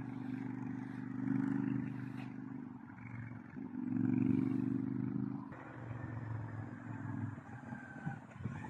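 Royal Enfield Interceptor 650's parallel-twin engine running through a full stainless steel TEC exhaust, revved up twice. About two-thirds of the way in the sound changes abruptly to a quieter engine note with a faint whine.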